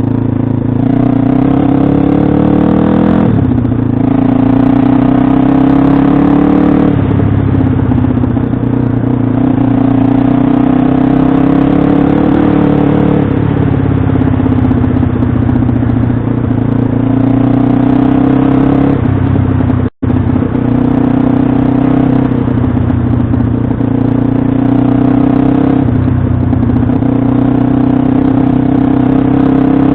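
Pit bike engine running hard, its revs climbing and dropping back again and again as the rider works the throttle and gears. The sound cuts out for an instant about two-thirds of the way through.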